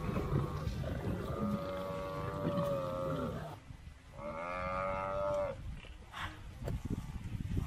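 African buffalo bawling: two long drawn-out calls of about two seconds each, dropping in pitch at the end, over a steady low rumble.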